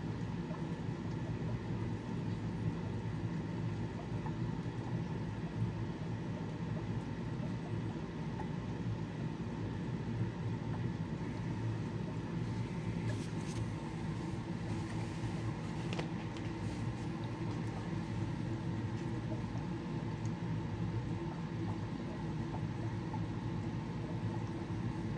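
Steady hum of fish-room aquarium equipment, a low mechanical drone with a few even tones under a hiss of moving air and water. A short spell of higher hiss with a faint click comes about two-thirds of the way through.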